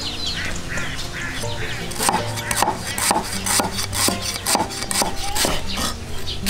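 Background music with birds chirping, then from about two seconds in a steady run of sharp knocks, about two a second, from food being prepared.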